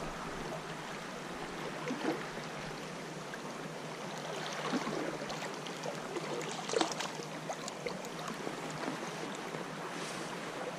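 Stream water running steadily over a shallow riffle, with a few faint short knocks.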